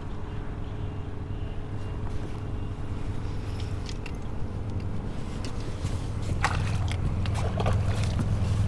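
A boat motor hums steadily and low. Over the last two seconds or so, a hooked flounder splashes at the water's surface beside the boat.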